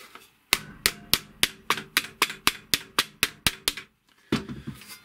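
Wooden mallet striking a bent sheet-metal tray, about a dozen quick blows at roughly four a second with a faint metallic ring, setting the folded edge. A duller thud follows near the end.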